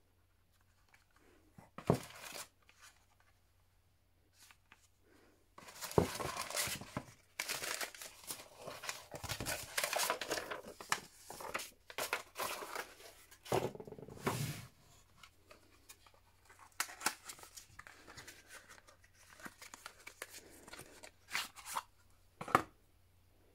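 Hands handling paper and cardboard packaging: crinkling and rustling of paper packing and a packing slip in a cardboard shipping box, densest in the middle, with quiet gaps and a few sharp clicks and taps, one near the end.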